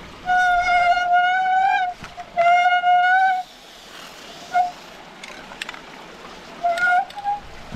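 Steel pipe axle squealing in its temporary wooden bearing as the waterwheel turns: two long, high squeals that rise slightly in pitch in the first few seconds, then short squeaks near the end. In between, a faint hiss as WD-40 is sprayed onto the dry wood-on-metal bearing.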